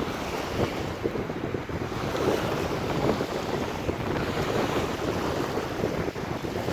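Wind buffeting the microphone over the rush and splash of sea water, a steady noisy roar.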